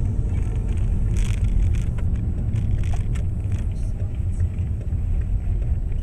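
Steady low rumble of a car's engine and tyres heard inside the cabin as it drives off and turns onto a street, with a few faint clicks.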